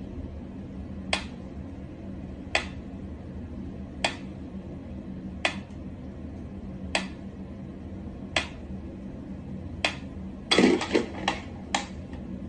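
Sharp single clicks or taps about every second and a half, over a low steady hum. Near the end comes a quick run of several louder clicks.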